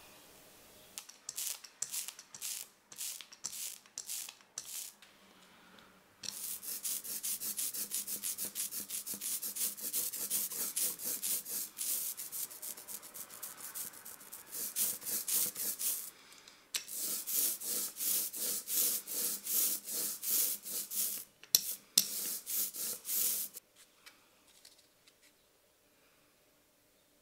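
Quick, repeated hand strokes scraping and rubbing across a soft rubber printing block, several a second. There are short start-stop bursts at first, then long steady runs that stop about three quarters of the way through.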